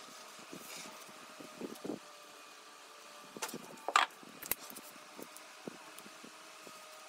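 Wooden workpieces and a steel square handled on a workbench: a brief scratch of a pencil on wood under a second in, then scattered knocks and taps, the loudest a sharp knock about four seconds in. Under it a faint steady machine hum with a thin whine.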